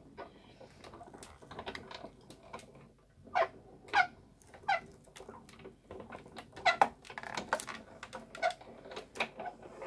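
Sizzix manual die-cutting machine being hand-cranked, with the GoPress & Foil plate sandwich rolling forwards and back through the rollers under pressure. It gives an irregular string of short creaks and squeaks with clicks.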